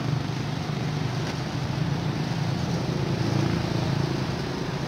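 Engine idling steadily, a low even hum.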